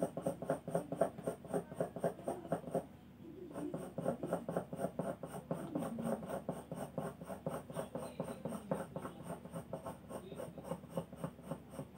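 Graphite pencil shading strokes scratching on drawing paper in quick back-and-forth hatching, about five strokes a second, with a brief pause about three seconds in.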